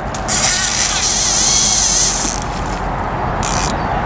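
Fishing reel paying out line during a cast: a high, hissing whir from the spinning spool for about two seconds. A shorter burst of the same sound follows near the end.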